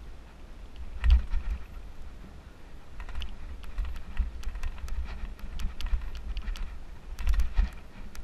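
Mountain bike rolling over a bumpy dirt trail, its chain and parts clicking and rattling irregularly, with heavier clattering knocks over the bumps about a second in, around three seconds in and again near the end.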